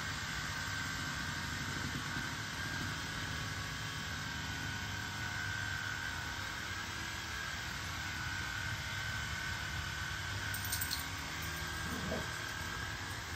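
A machine's steady drone runs throughout, with a constant hum and a high steady tone. Near the end a dog whimpers briefly.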